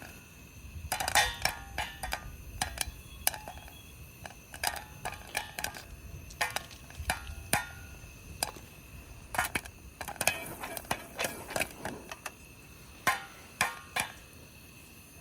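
Pan and spoon clattering: irregular clinks, knocks and scrapes as freshly made popcorn is taken out of the pan.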